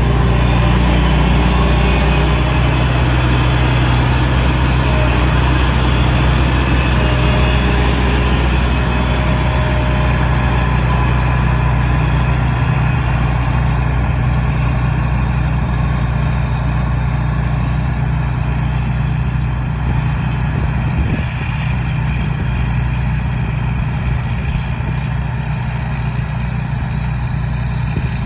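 Rice combine harvester engine running steadily, with a deep, continuous hum.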